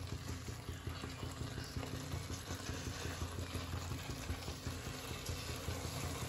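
Watery onion-tomato masala gravy with peas bubbling in a kadhai on the stove: a steady run of many small pops over a low hum.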